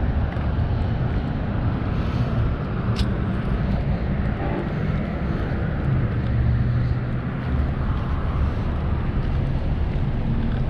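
Steady low rumble of road traffic, with a single short tick about three seconds in.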